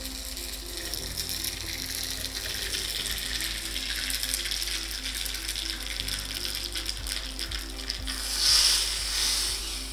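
Mustard seeds crackling and popping in hot ghee in a small iron tempering ladle, then a loud sizzle about eight seconds in as the hot tempering is poured into the rasam. Background music plays underneath.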